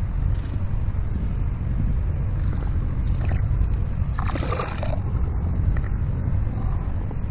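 Small fish released by hand into shallow river water, with a brief splash about four seconds in and a lighter one just before it. Under it runs a steady low rumble of wind on the microphone.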